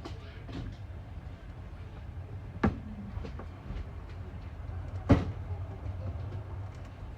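Passenger train wheels clacking over rail joints on jointed track: a steady rumble of the moving carriage with two sharp clacks about two and a half seconds apart, each followed by fainter clicks.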